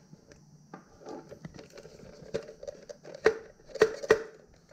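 Hard plastic parts of a fuel pump module being handled and fitted together: scattered light clicks, then three sharp plastic knocks close together in the second half.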